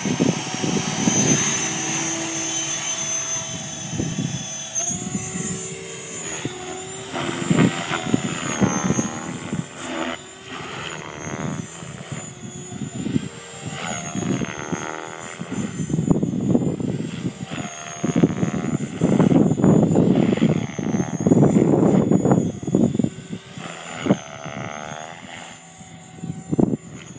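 Radio-controlled model helicopter spinning up and flying: a high steady whine over the rush of its main rotor, swelling and fading as it swings around in inverted hurricane circles.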